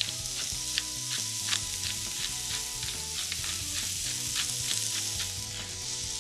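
Carrots sizzling in oil in a frying pan, a steady hiss, with a run of light clicks, about two to three a second, from a pepper mill grinding black pepper.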